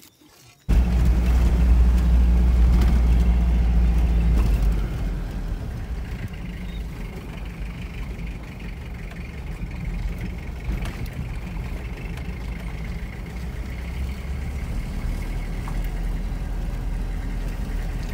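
Vehicle engine and road rumble heard from inside the cabin while driving. A deep, steady rumble starts suddenly about a second in, loudest for the first few seconds, then settles a little lower.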